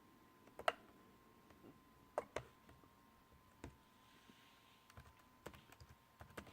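Faint, scattered clicks from working a computer, about seven spread unevenly through the span, over a faint steady high-pitched tone.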